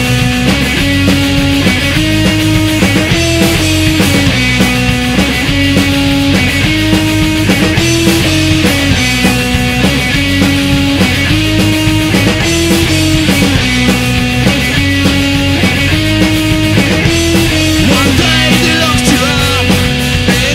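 Studio recording of a street-punk (Oi!) rock song, loud and steady: electric guitars, bass and drums playing a repeating riff that steps up and down about every two seconds.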